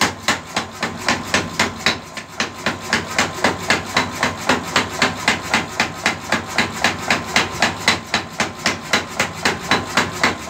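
Mechanical power hammer, with a belt-driven flywheel, striking a red-hot steel tractor blade in a rapid steady rhythm of about four to five blows a second; the blows forge the edge thin to sharpen it. The rhythm falters briefly about two seconds in.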